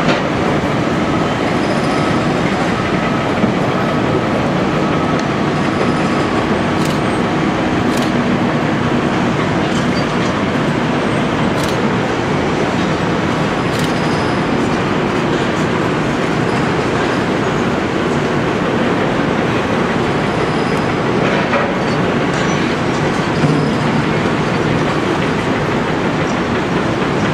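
Link-Belt 330LX excavator working: its diesel engine and hydraulics running steadily under load, with a few sharp metallic clanks near the middle.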